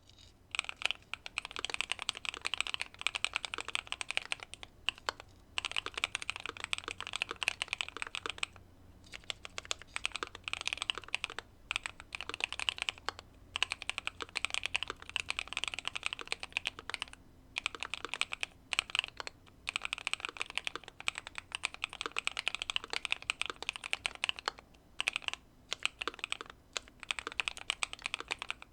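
Typing on a Keychron Q2 mechanical keyboard with factory-lubed Pearl Lemon switches, tape-modded and foam-filled case: rapid runs of keystrokes broken by brief pauses.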